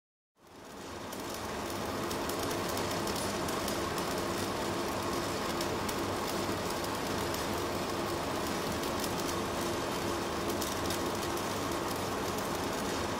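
Steady crackle and sizzle of a stick-welding (shielded metal arc) electrode burning against steel plate. It fades in over the first couple of seconds.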